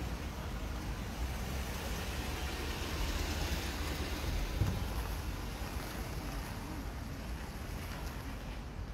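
A car, a dark SUV, driving past close by: its tyre and engine noise swells around the middle and fades, over a steady street background. A short thump comes about halfway through.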